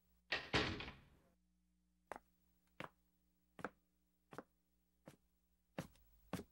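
Slow footsteps on a wooden floor, about one step every three quarters of a second, each a short knock. A brief rustling sound comes just before them.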